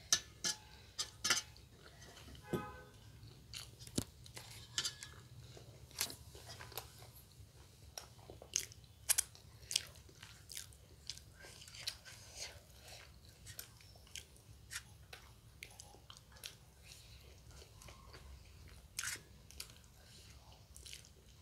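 Close chewing and eating sounds of people eating by hand from steel plates: irregular wet mouth smacks and bites, with scattered light clicks and taps.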